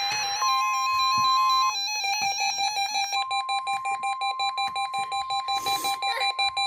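Electronic emergency-alert tones of a weather radio warning test: a steady high alarm tone comes in briefly early on and again from about three seconds in. It sits over a lower tone that keeps stepping in pitch and, in the later part, a fast run of pulsing beeps.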